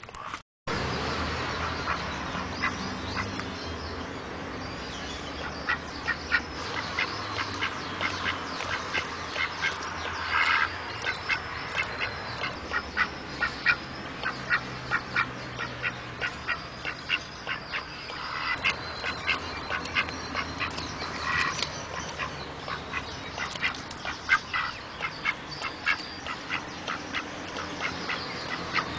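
Mallard drake making a long run of short, soft calls several times a second, with a couple of longer calls about ten and twenty-one seconds in.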